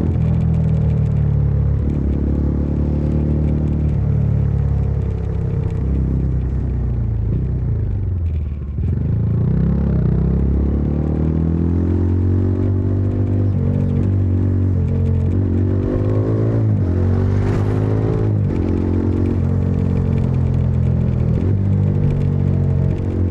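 Bajaj Dominar 400 UG's single-cylinder engine and exhaust while riding. It slows with the pitch falling about a third of the way in, then pulls up under acceleration through several quick gear changes, and settles into a steady cruise.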